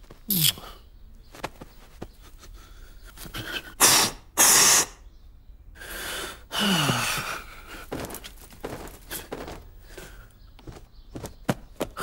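Cartoon character's wordless vocal effects: gasping breaths and short, sharp sneeze-like bursts, the two loudest close together about four seconds in, with a few brief falling-pitch grunts.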